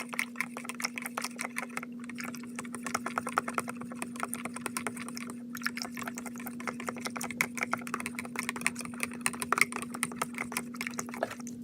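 A spoon stirring borax powder into hot water in a cup, clicking rapidly and continuously against the cup's sides to dissolve it; the clicking stops near the end. A steady low hum runs underneath.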